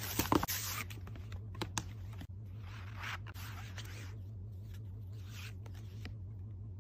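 Packaging being opened by hand: a few sharp clicks and rustles at first, then scratching and tearing sounds in soft swells, over a steady low hum.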